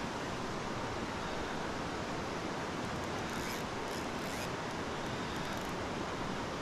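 Mountain trout stream rushing steadily over riffles: a constant, even hiss of flowing water, with a few faint ticks about halfway through.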